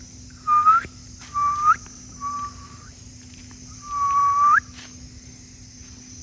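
Indian peafowl calling four times, each a clear call held briefly and rising at the end, the last one the longest, over a steady chirring of crickets.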